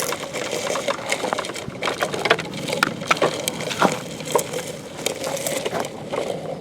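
Toy construction vehicles digging and scraping through sand and dirt: a run of irregular crunches, clicks and knocks, with a faint steady hum beneath.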